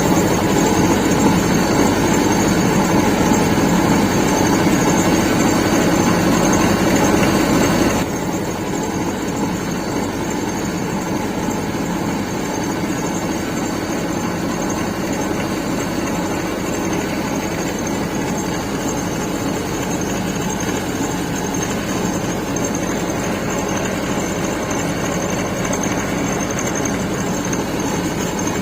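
Window air conditioner with a faulty compressor running, a steady mechanical hum and vibration that drops to a lower level about eight seconds in. This is the noise of a bad compressor.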